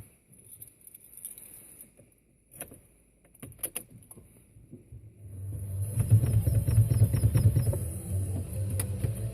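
Clicks and a jingle of keys, then the Opel Meriva A's 1.4 Twinport four-cylinder petrol engine starts about five seconds in. It runs loudest for a moment, then settles a little into a steady idle.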